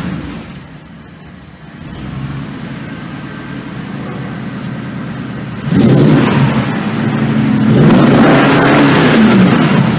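1972 Dodge Dart's naturally aspirated V8 dropping back to a low idle, then revved hard again about six seconds in, with a second rise of revs before they fall away at the end.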